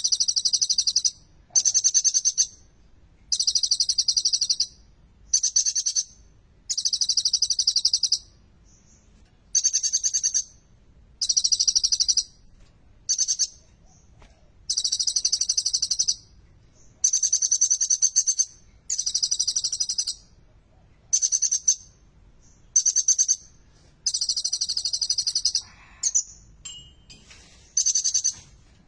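A kolibri ninja sunbird singing vigorously in rapid, high, trilled phrases of about a second each, repeated over and over with short pauses between.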